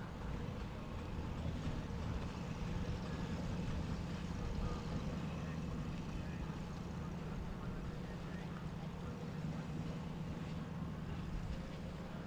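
Boat engine running with a steady low rumble, swelling slightly in the middle as the boat passes.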